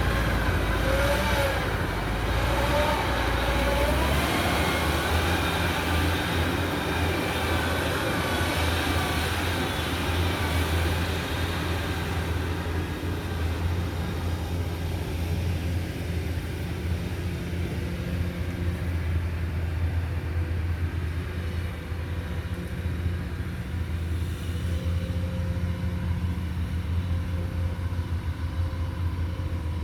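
Large diesel engine running steadily with a low hum. Over roughly the first dozen seconds a higher, wavering squeal rides on top, then fades.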